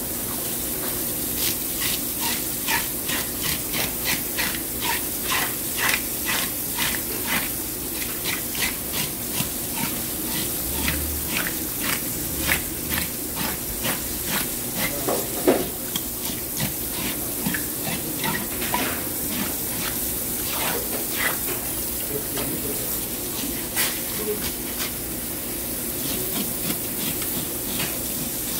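Metal fish scale scraper raking scales off a large fish in quick repeated strokes, about two a second, over steady running water.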